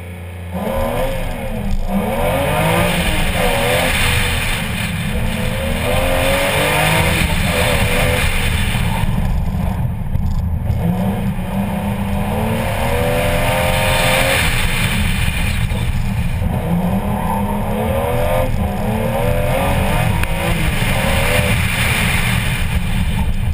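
BMW E36 M3's straight-six engine pulling away hard from a standing start about half a second in, then driven flat out. The engine pitch climbs and drops again and again through gear changes and lifts between bursts of acceleration.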